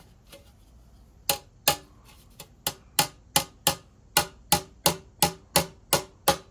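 Hammer tapping on the sheet-metal body of a Wayne 505 gas pump to work out dents, each strike giving a short metallic ring. Two separate blows come first, then a steady run of strikes about three a second.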